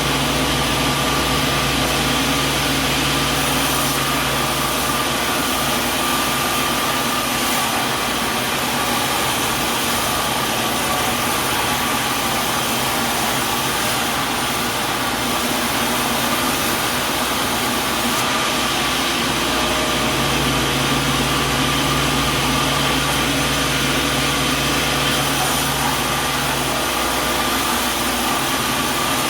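Sawmill machinery running steadily with a continuous mechanical whir. A deeper hum fades out a few seconds in and comes back for several seconds later on.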